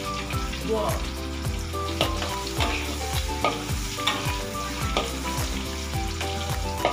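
Fish frying in hot oil in a wok, sizzling steadily, with a metal ladle-spatula clinking and scraping against the pan as the pieces are stirred.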